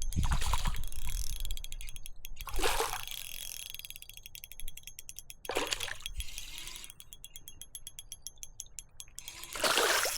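Water splashing four times, a few seconds apart, each splash short, over a faint rapid ticking.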